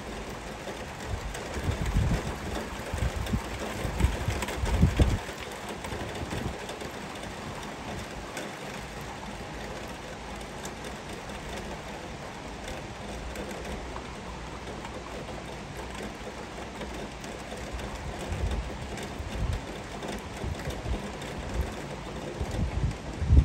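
Heavy rain falling steadily. Irregular low rumbles run through the first few seconds and return near the end.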